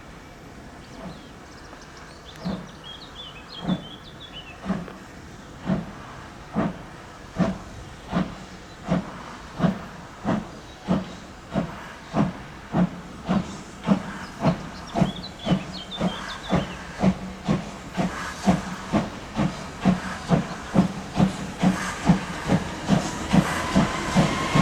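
Steam locomotive 23 042 (a DB class 23) pulling away: its exhaust chuffs start about one a second and quicken to about two a second, growing louder as the train accelerates.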